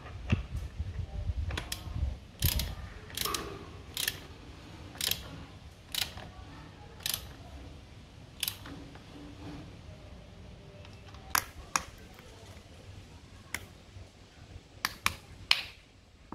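Socket ratchet wrench clicking as a bolt under a motorcycle engine is turned, in sharp clicks about once a second and then a quicker cluster near the end.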